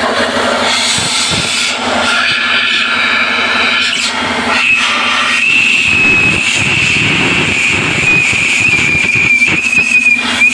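A steady high-pitched whistling tone setting in about five seconds in and holding, over a steady low hum and rough rubbing-like noise.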